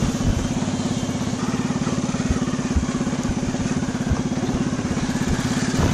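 Motorbike engine running steadily, a fast, even putter.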